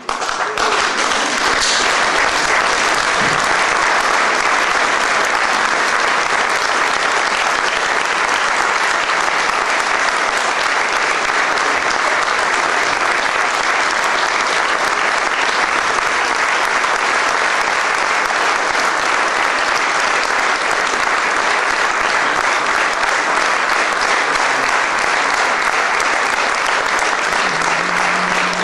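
Theatre audience applauding, a dense continuous wash of clapping at a steady level. A low steady tone joins near the end.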